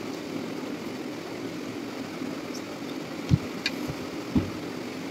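Steady mechanical hum filling the room, with two short low thumps a little over three and four seconds in and a few faint clicks.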